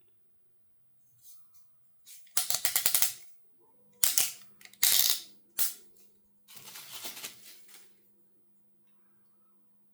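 Several bursts of rattling and rustling as packaging and parts are handled while an airsoft silencer is unboxed; the first burst is a quick run of clicks.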